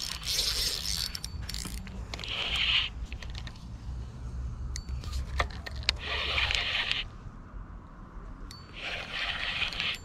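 Fishing reel being cranked by hand to wind in line. It goes in short spells of about a second each, four of them, with a few sharp clicks in between and a low rumble underneath.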